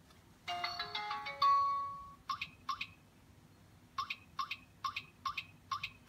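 Douwin F750S fingerprint lock's touch keypad waking with a short electronic jingle that ends in a held tone, then a string of short beeps as digits of a password are tapped in.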